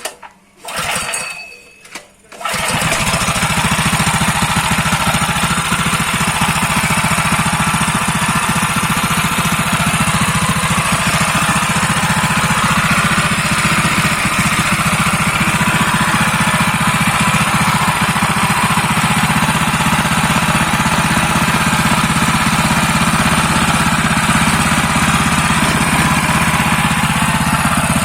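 Small 6.5 hp single-cylinder four-stroke general-purpose petrol engine starting after two short bursts of sound, catching about two and a half seconds in. It then runs loud and steady at a fast, even beat.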